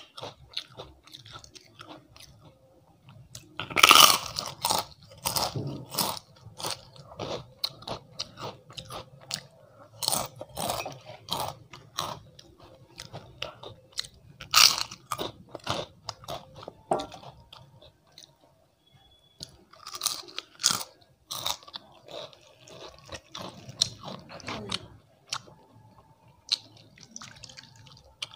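Close-miked crunching of a fried papad being bitten and chewed, with loud crunches every few seconds among softer chewing of rice and dal.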